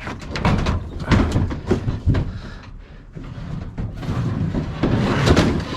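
A run of knocks, clicks and clatter, with a denser rush of noise in the later part.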